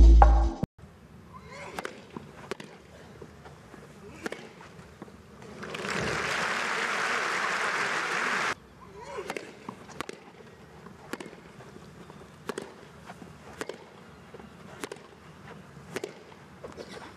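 A short burst of crowd applause that cuts off abruptly, then a tennis rally: a string of sharp racket-on-ball strikes, roughly one every half second to a second. A music sting ends in the first second.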